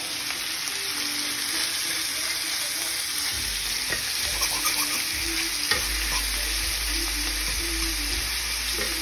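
Pieces of hare meat sizzling as they fry in hot fat in a frying pan, with a fork scraping the pan as it turns them.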